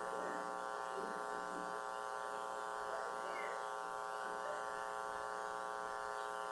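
Steady electrical buzz, a mains hum in the sound system, holding one unchanging pitch with a stack of overtones.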